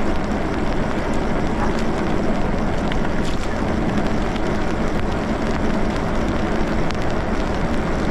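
Steady rushing noise of an e-bike riding on a wet road: wind across the microphone and tyres on wet pavement, with a faint steady hum underneath.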